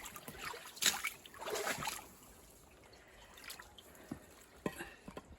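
Creek water splashing and trickling, loudest in the first two seconds, then quieter with a few light clicks.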